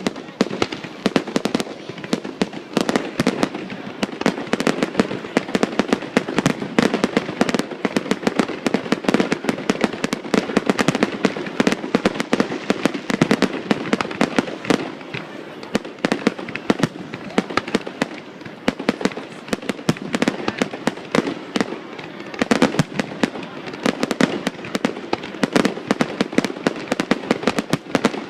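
Fireworks display: a dense, continuous run of bangs and crackles, many per second, with no let-up.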